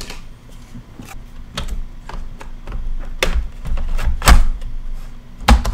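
Clicks and knocks of a PS4 power supply unit being handled and pressed down into the console's plastic casing, with a few sharper knocks about three and four seconds in and just before the end.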